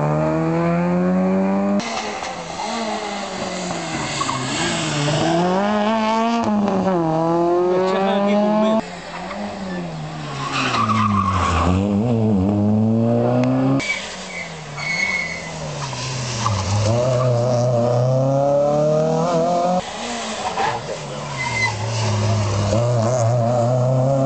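Rally car engines revving hard through a tight corner, the pitch climbing through the gears and dropping off on the brakes, over and over. There is a short tyre squeal near the middle.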